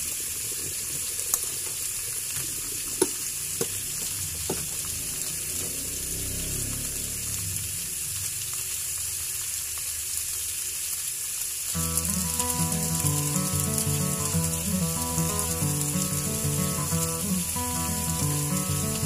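Whole tulingan (bullet tuna) frying in a pan with sliced onion and ginger: a steady sizzle with a few light clicks and pops in the first five seconds. Background music comes in about twelve seconds in and plays over the sizzle.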